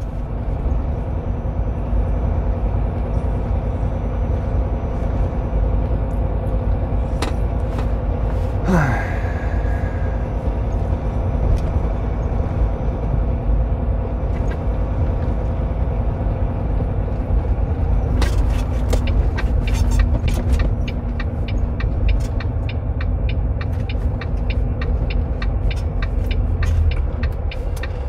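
Semi-truck driving, its diesel engine running under a steady low road rumble. About nine seconds in, a short sound slides sharply down in pitch. Through the second half a run of sharp clicks sounds over the rumble.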